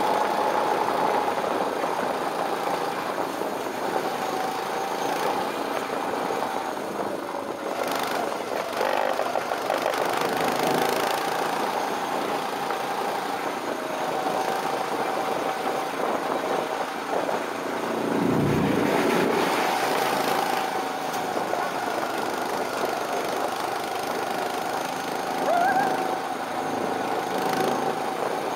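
Small go-kart engine running steadily as the kart is driven around the track.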